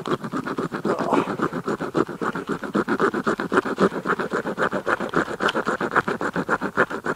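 Serrated steel striker scraped rapidly back and forth across a magnesium fire-starter block, several strokes a second, shaving off magnesium filings for tinder.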